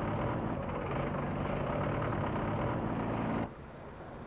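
A heavy engine running steadily, which cuts off suddenly about three and a half seconds in, leaving a quieter rushing noise.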